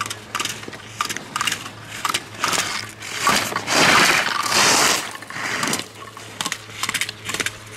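Slalom skis carving and scraping on hard, icy snow through the gates, with a run of sharp clacks as the slalom poles are struck. There is a longer, louder scrape about three to five seconds in.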